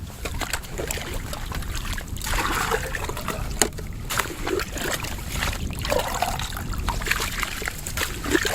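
Water sloshing, splashing and trickling in a hole drilled through lake ice as it is dipped into, in irregular strokes.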